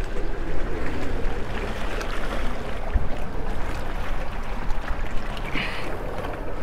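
Seawater sloshing and lapping against a boat's hull and the rig's steel legs, with wind on the microphone, as one steady wash of noise; a dull knock about three seconds in.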